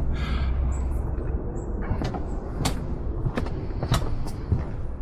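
Footsteps at a walking pace, sharp short knocks about every two-thirds of a second, over a low rumble on the microphone.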